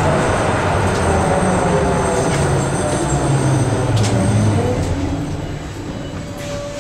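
Electric tram running, heard from inside the passenger cabin: a steady low rumble with whining tones from the drive that shift in pitch, growing quieter over the last couple of seconds.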